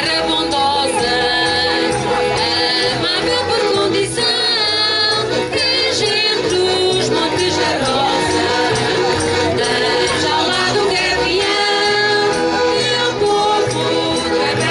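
Folk choir of mixed voices singing to accordion and guitar accompaniment, the music continuous and steady in beat.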